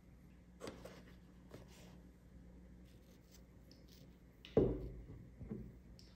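Light handling noises in a small room: a few faint rustles and scrapes, then one sharper knock about four and a half seconds in, followed by two softer taps, over a faint steady hum.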